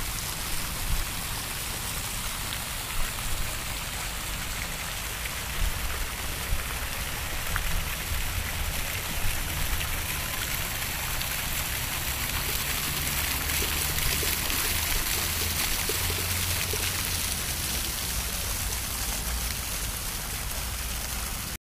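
Fountain jets splashing into a pool: a steady hiss of falling water, with a low rumble underneath and a few faint knocks.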